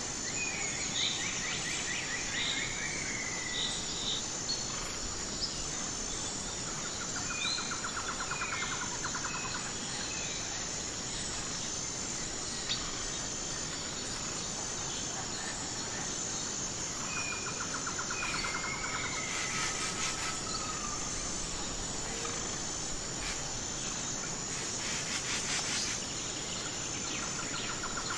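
Birds singing over a steady, high chirring of insects. One bird repeats a short trill about every ten seconds, among scattered brief chirps.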